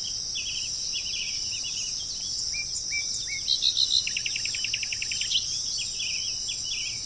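Small songbirds chirping, with a fast trill of about ten quick notes a second around four seconds in, over a steady high-pitched insect chorus.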